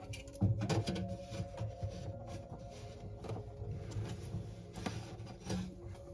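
PC front-panel cables and their small plastic connectors being handled and fitted onto the motherboard's headers: irregular small clicks and rustling, the sharpest cluster about half a second in.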